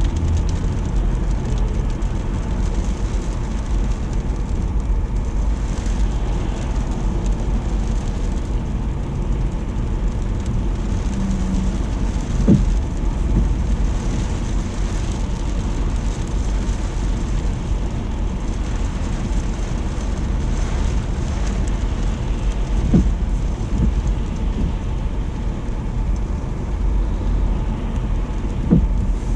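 Heavy rain and sleet falling steadily over a constant low rumble, with three brief low thumps spaced several seconds apart, the last near the end.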